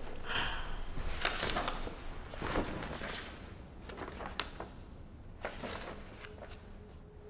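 Sheets of paper rustling and being handled in a few separate bursts, with small clicks, as a document is read through.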